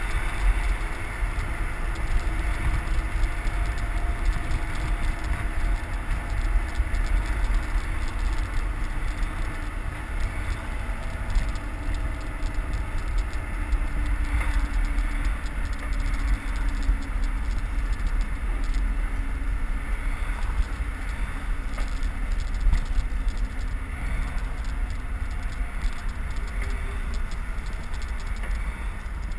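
Wind rumbling on the microphone of a camera on a moving bicycle at speed, mixed with tyre, road and passing-traffic noise.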